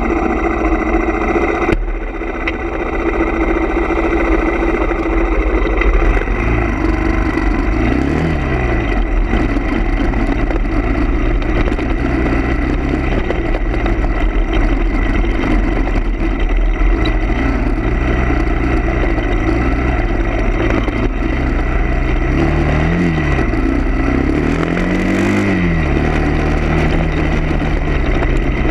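A vehicle engine running steadily, its pitch rising and falling briefly a few times.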